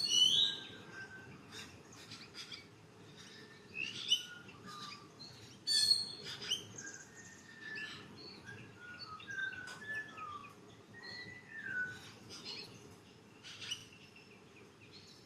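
Several forest birds calling in a morning chorus: sharp chirps and short falling whistled notes that overlap and come every second or so, over a faint steady low background hiss.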